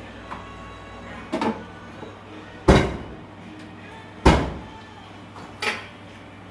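Four sharp knocks about a second and a half apart, the two in the middle loudest, each dying away quickly.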